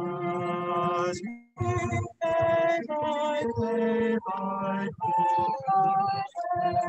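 Small choir singing a cappella, the phrases cutting out abruptly several times. The sound is garbled, which the uploader puts down to technical difficulties with the stream's audio.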